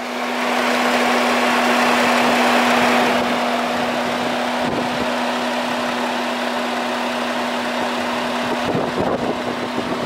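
Electric radiator cooling fan of a BMW F10 535d running loudly at high speed: a steady rush of air over a steady hum, a little louder in the first three seconds. The fan is spinning much harder than it should, with no fault found to call for it.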